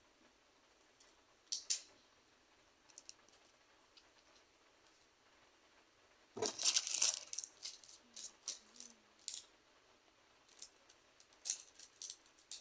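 Photocard packing materials being handled: scattered small clicks and taps of plastic sleeves and cards, with a louder crinkling rustle of plastic about six seconds in.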